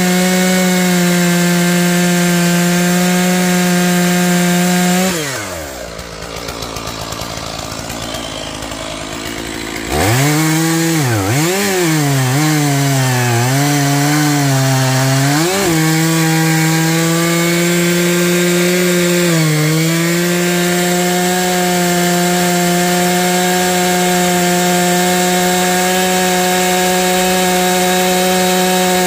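Stihl MS461 two-stroke chainsaw bucking Douglas fir logs: it runs at full throttle, drops back to idle about five seconds in, then revs up again about ten seconds in. Its pitch dips several times as the chain bites into the wood, then holds steady at full revs through the rest of the cut.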